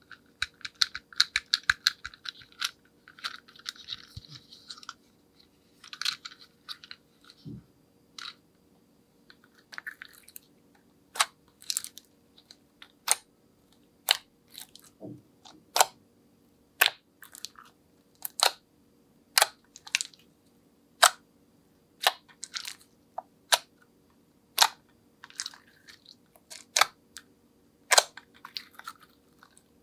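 Glossy slime being squeezed and worked by hand: wet, crackly squishing for about the first ten seconds, then a run of sharp single clicks, roughly one a second.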